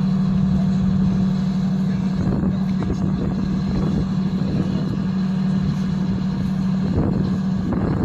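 M113-type armored mortar carrier's diesel engine running with a steady, even hum.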